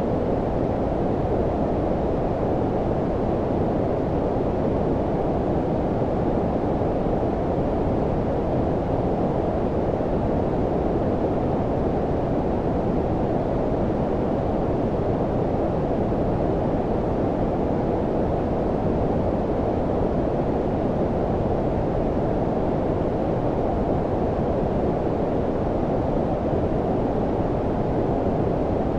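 Steady, deep rushing noise with the highs filtered away, a muffled hiss with no changes or events: a synthetic low-frequency white noise (brown-noise style) sleep sound.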